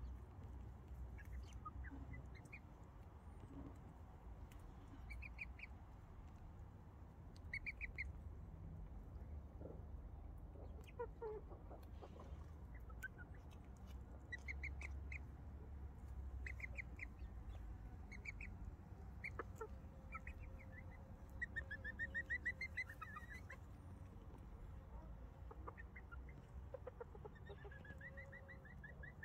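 Bantam chickens clucking and chirping softly in short, quick runs of notes every few seconds, over a low rumble.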